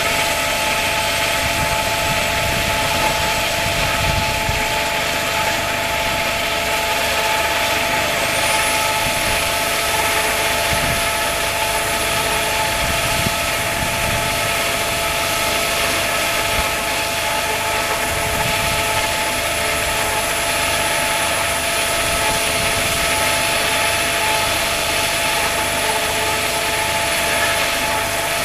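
Diamond wire saw running steadily while cutting through heavily reinforced concrete: a constant mechanical whir with a steady hum. A thin high whine rises about a third of the way in and then holds.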